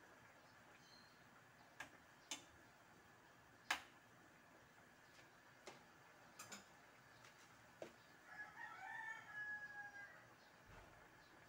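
Several light metal clinks of a spoon against a stainless steel frying pan as the pan is stirred, the loudest about four seconds in. Near the end, a faint animal call lasting about two seconds.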